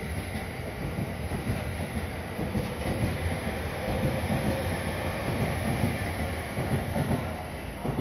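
JR East E231 series electric multiple unit pulling out and rolling past close by: wheels clacking over the rail joints under a steady rumble, with a faint whine from its traction motors and inverters. The sound eases near the end as the rear car goes by.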